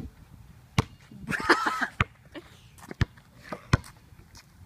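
Basketball bouncing on a concrete driveway: four sharp smacks about a second apart. A short high-pitched vocal sound comes about a second and a half in.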